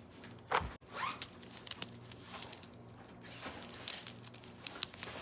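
Handling noises: scattered clicks and short scraping, rustling sounds, with a louder thump about half a second in.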